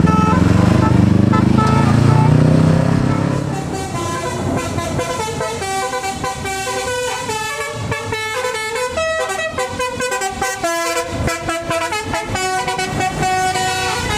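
Tour bus's telolet horn, a multi-note Basuri-type musical air horn, playing a quick tune of stepped notes that change pitch several times a second. A heavy bus engine rumble, gliding in pitch, runs under the first few seconds and then fades.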